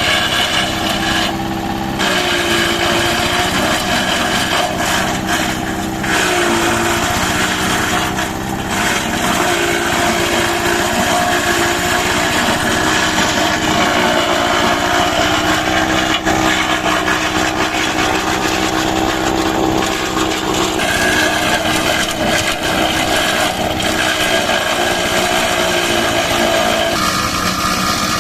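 JT-5700 engine-driven grass chopper running at speed while shredding cassava stems, its engine note sagging briefly now and then under the load of the stems.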